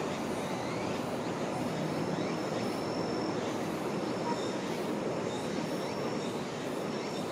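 Steady outdoor background noise, an even wash with no single event standing out, with faint high thin tones that come and go over it.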